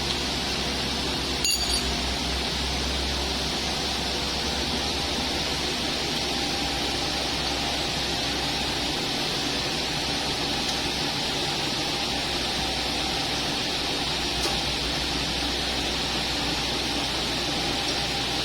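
Horizontal milling machine running steadily in a workshop hum, with a sharp metallic clink about a second and a half in and a faint tick near the end.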